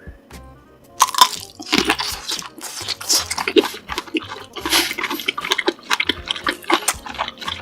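Close-miked wet chewing and mouth sounds of a person eating, a rapid, irregular run of sticky smacks and clicks starting about a second in.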